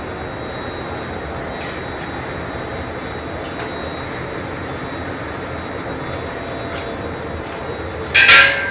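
Gas-fired glory hole burner running with a steady roar while glass on a blowpipe is reheated. About eight seconds in, a brief loud hiss cuts across it.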